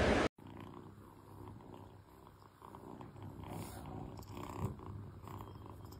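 A loud rushing noise cuts off abruptly just after the start. Then a kitten purrs softly and steadily while it is being brushed.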